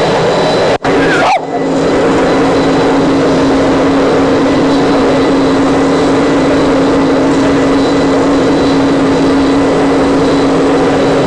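A steady, loud rushing noise with a constant low hum, cutting out sharply twice about a second in, then carrying on unchanged.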